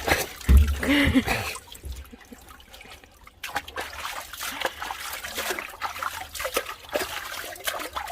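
Water splashing and trickling as a dog is dunked and bathed in a tub, with a brief louder burst about a second in, then many small splashes and drips.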